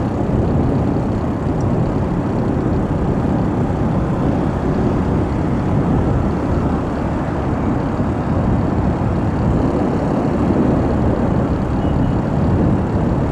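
Steady wind rush and road noise on a helmet-mounted phone's microphone as a motorcycle cruises at speed.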